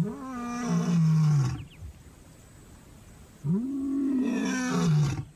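Lion roaring: two long, moaning calls a couple of seconds apart, each rising, holding, then sliding down in pitch. It is a male's territorial roar, proclaiming his claim to the area.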